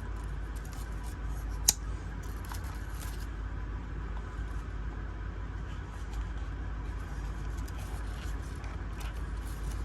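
A Case XX Sod Buster Jr. folding knife being worked into a tight-fitting sheath: faint rubbing and scraping, with one sharp click a little under two seconds in, over a steady low hum.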